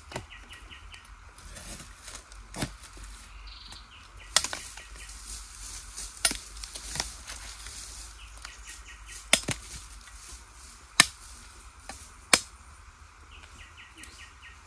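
A large knife chopping through wild bamboo shoots to trim them: about eight sharp chops at uneven intervals of one to two seconds.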